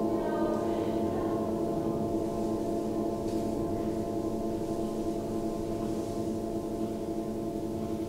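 Tibetan singing bowls made of seven-metal alloy ringing together: a dense hum of many steady, overlapping tones that slowly die away. A few fainter, higher tones come in about half a second in.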